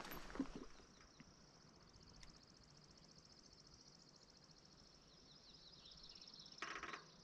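Near silence, with a faint, high-pitched, fast trill held for about six seconds and a short rustle near the end.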